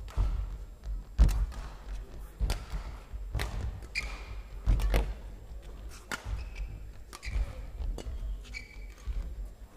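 Badminton rally: racket strikes on the shuttlecock about once a second, traded back and forth, with thudding footwork on the court and a few short squeaks.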